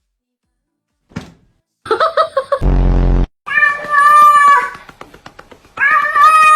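Cat meowing: a short bending meow, then two long drawn-out meows. Between them comes a short, loud, low buzzing sound effect.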